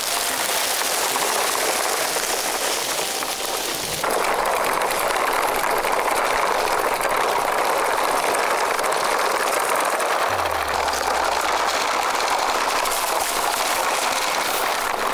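Wheels of a plastic toy car-carrier truck rolling over dry fallen leaves, a steady rustling noise that changes character about four seconds in.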